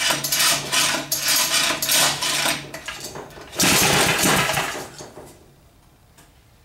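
Old REO small engine running roughly with a metallic clatter, surging loudly about three and a half seconds in and then dying out about a second later. The owner suspects a sticking carburettor float is flooding it.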